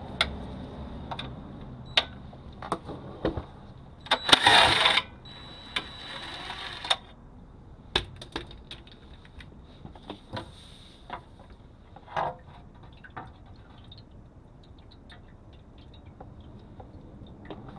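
Scattered metallic clinks and knocks of hand tools and steel bolts while the transmission pan bolts are taken out. A short loud harsh burst comes about four seconds in and trails off into a quieter rush until about seven seconds.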